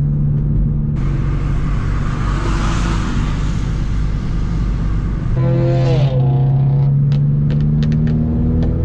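Car engine running steadily, heard from inside the cabin. A loud rushing hiss joins it for about four seconds, then the engine revs rise briefly about five seconds in. A few light clicks come near the end.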